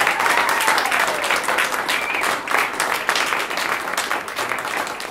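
A small audience clapping in a dense, steady round of applause.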